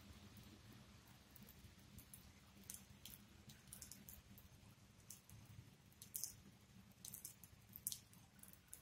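Near silence: a faint low hum with scattered faint high-pitched ticks, several a second at irregular intervals.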